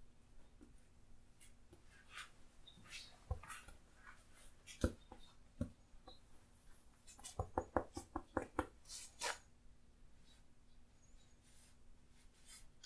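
Faint taps and scrapes of oil-painting tools working on a canvas and palette, with a quick run of about ten taps a little past the middle.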